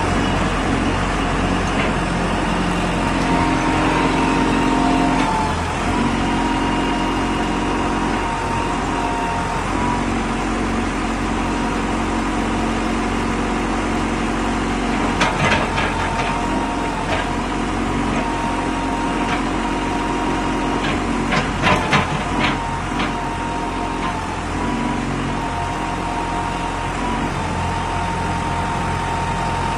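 CAT 420F backhoe loader's diesel engine running steadily, with a cluster of sharp knocks about halfway through and another about two-thirds of the way in.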